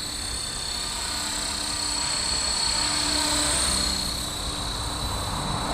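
Blade Fusion 360 electric RC helicopter in flight: a steady high motor whine over the rush of the rotor blades, growing a little louder around the middle and easing off again.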